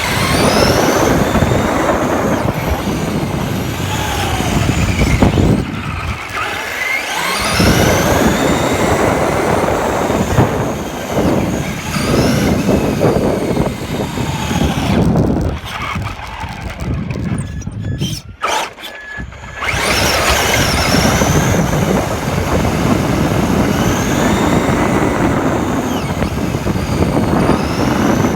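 Traxxas RC car driving, heard from a phone mounted on the car: its electric motor whines up and down in pitch over loud, rough running noise. The sound drops away briefly three times.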